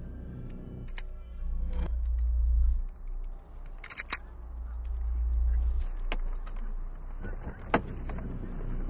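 Keys jangling and clicking as they are handled inside a car cabin, with several sharp clicks and two stretches of low rumble.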